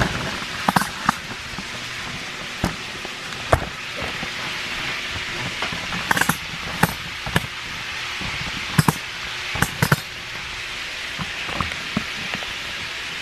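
Chicken frying in a pan: a steady sizzle, broken by scattered sharp clicks and knocks.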